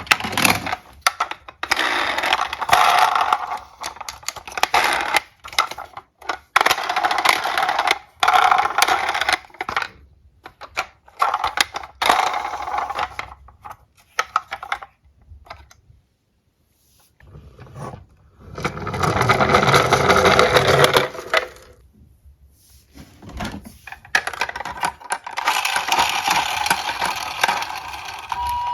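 Diecast metal toy cars clattering and clinking against each other and a hard surface, in irregular bursts with short pauses and a longer, fuller clatter about two thirds of the way through.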